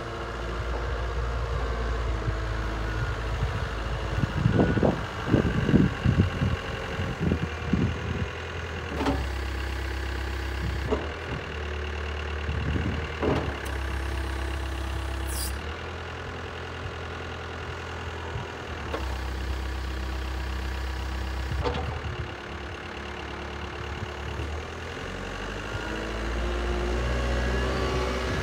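Caterpillar 907H compact wheel loader's diesel engine running, its revs shifting up and down as it drives and works the hydraulic snow plow. A cluster of loud clunks comes about four to eight seconds in, and a few single knocks follow later.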